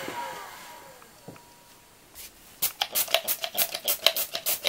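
A small brush scrubbing quickly back and forth over a graphics card's circuit board, about five rapid strokes a second in the second half, cleaning off burnt residue from a short circuit. In the first second a whirring motor winds down, falling in pitch.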